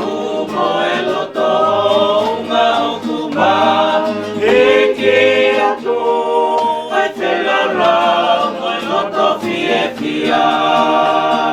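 Choir singing a hymn a cappella, voices together in chords with short breaks between phrases.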